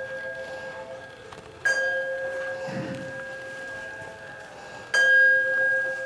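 A bell struck twice, about three seconds apart, each stroke ringing on with a steady tone that slowly fades.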